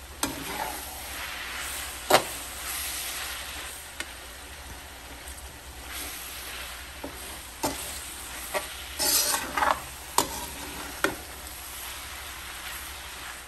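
Minced meat sizzling in oil in a metal wok while a metal slotted spoon stirs it, with sharp clacks and scrapes of the spoon against the pan. The loudest clack comes about two seconds in, and a longer scrape about nine seconds in.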